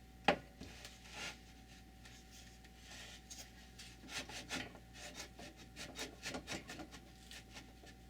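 Hands handling wooden jig parts on a workbench: a sharp knock just after the start, then scattered light clicks and rubbing.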